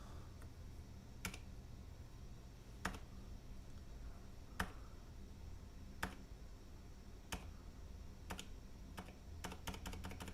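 Single keypresses on an MK Fission keyboard with Cherry MX Silent Red switches, spaced a second or so apart, then a quick run of presses near the end. These are function-key presses that change the side-wall RGB lighting.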